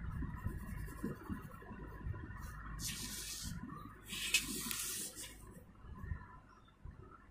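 Coloured pencil and hand scraping on drawing paper, with two short hissing scrapes a little past the middle. Low, uneven handling rumble runs underneath.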